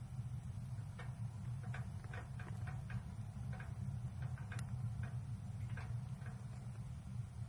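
Wood fire crackling in a Gstove tent stove: irregular small pops and ticks over a steady low rumble.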